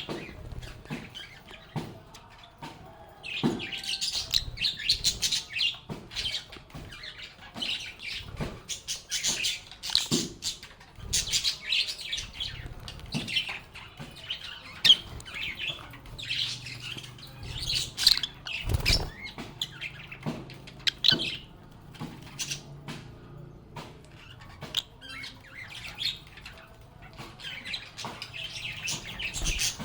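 A group of lovebirds chirping and chattering in clusters of rapid high-pitched chirps with short pauses between them. A few light knocks come in among the calls.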